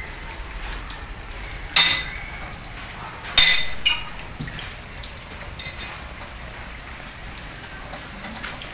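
A few sharp, ringing clinks of hard objects, the two loudest about two and three and a half seconds in, over a steady light patter of rain.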